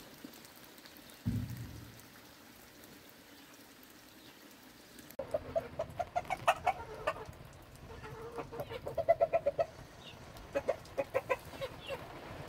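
Chickens clucking in quick runs of short notes, starting about five seconds in. Before that there is only a faint steady hiss and one low thump just over a second in.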